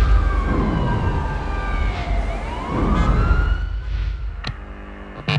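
Emergency vehicle siren wailing, its pitch slowly rising, falling and rising again, over a low rumble. Two sharp clicks come near the end.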